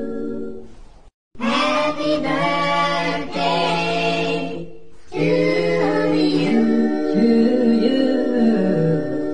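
Background music of unaccompanied voices singing held, sustained notes. The track cuts out to silence briefly about a second in, then the singing resumes.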